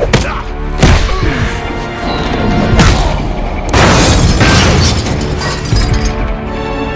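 Added fight sound effects over a dramatic film score: several hard punch and body-hit booms, then a longer crash about four seconds in.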